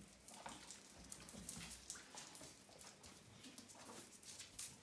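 Faint scattered ticks and rustles from a small dog moving about on a cork floor and nosing into a shopping bag.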